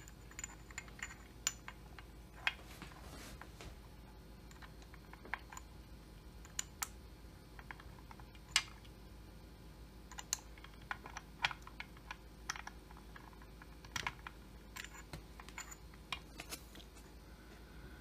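Irregular light clicks and taps of metal parts being handled: a chainsaw kit piston and wrist pin being lined up on the connecting rod.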